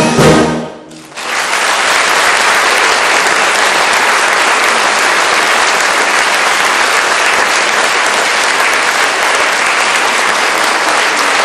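A concert band's final chord stops less than a second in; after a brief gap, an audience applauds steadily.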